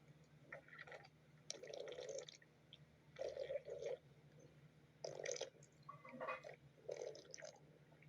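A stomach growling: about six short, irregular liquid gurgles a second or so apart.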